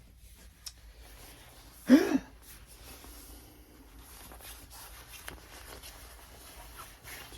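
One short vocal sound from a person about two seconds in, over quiet room tone with a few faint clicks.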